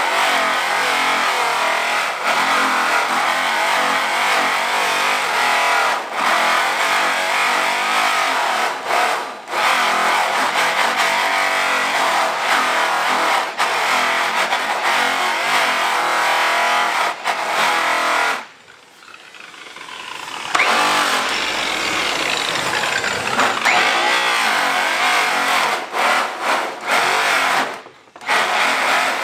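Electric rotary polisher buffing an aluminum truck wheel: a steady high motor whine whose pitch wavers as the buff is pressed onto the metal. It cuts out for about two seconds about two-thirds of the way through, then starts up again.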